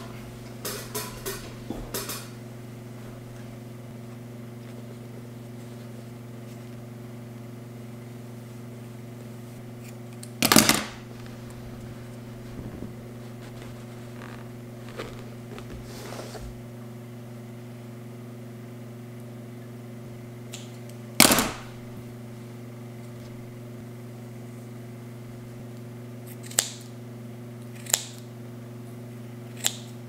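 A steady electrical hum, with sharp clicks and knocks from yarn, scissors and a notebook handled on a wooden tabletop: a quick run of clicks at the start, two loud knocks about ten and twenty-one seconds in, and a few lighter clicks near the end.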